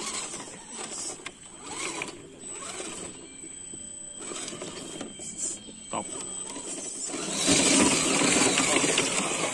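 RC scale crawler's electric motor and geared drivetrain running as it crawls over tree roots and dry leaves, tyres scrabbling on the litter. About three-quarters of the way through the sound gets much louder and rougher as the truck works its way over a root.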